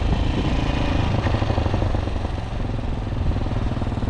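Italika DM150 motorcycle's single-cylinder four-stroke engine running steadily under way, dropping slightly in level about halfway through.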